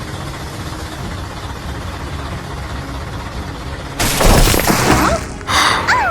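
Cartoon sound effects: a steady rushing noise, then a loud crash about four seconds in, a second burst, and a rising-and-falling whistle-like cry starting near the end.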